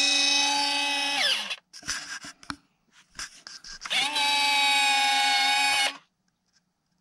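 Electric retractable landing gear of an RC C-130 model cycling: two steady motor whines of about two seconds each, each rising in pitch as it starts and dropping as it stops, with a few clicks between them. During the second whine the wheels retract.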